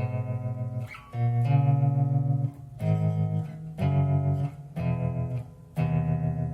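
Bass guitar played through a Fender Rumble LT25 bass combo amp: five plucked notes about a second apart, each left ringing, the last one sustained.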